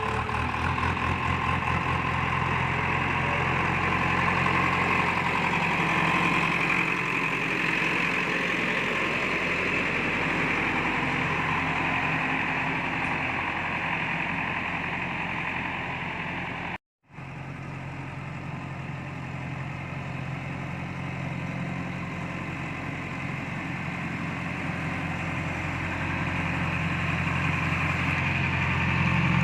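Diesel engine of a JCB 3DX backhoe loader running steadily, its level slowly swelling and easing off, with a momentary dropout a little over halfway through.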